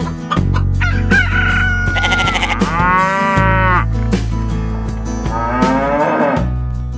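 Cow mooing, two long moos about three and five and a half seconds in, with a chicken's high call about a second in. Underneath are a steady low drone and rhythmic clicking.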